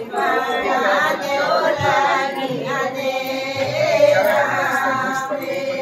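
A group of women singing a Himachali wedding folk song together, a slow melody with long, wavering held notes.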